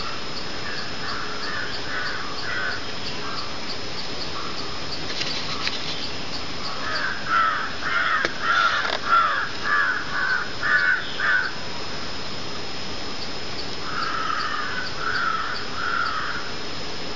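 A bird calling with short repeated calls in three bouts: a few near the start, a louder run of about eight in the middle, and three more near the end, over a steady hiss.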